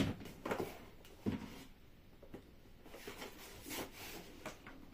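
Cardboard box being opened and handled: a few short rustles, scrapes and light knocks of cardboard, the clearest a knock about a second in.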